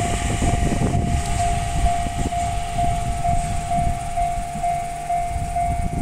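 Railway level-crossing warning bell ringing in a steady pattern of about two rings a second. Under it, a passing electric train makes a low rumble, with a few wheel clicks.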